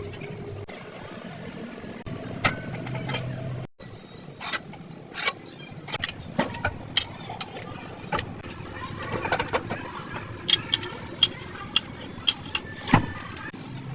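Irregular sharp clicks and knocks of hand-tool work on a truck's clutch assembly, over a low steady hum, with an abrupt break a little under four seconds in.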